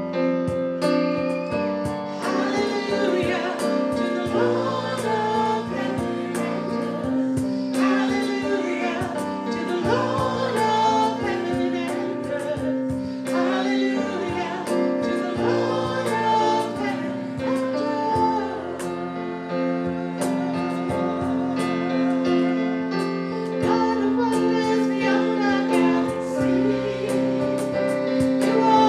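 Worship music: singing over sustained instrumental accompaniment.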